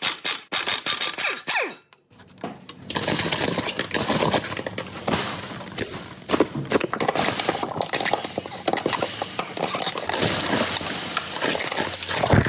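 Dense run of metallic clinks, taps and scraping, as of hand tools working on metal, after a short quiet pause about two seconds in.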